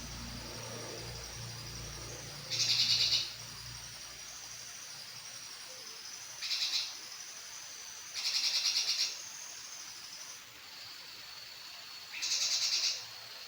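Brinji kelabu bulbul calling: four short, rapid trilled phrases, each under a second, with gaps of one to three seconds between them. A faint steady high tone runs underneath.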